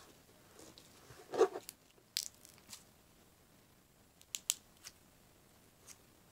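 Gold glitter slime being pulled and squeezed by hand, giving a few scattered sticky clicks and snaps, the loudest about a second and a half in.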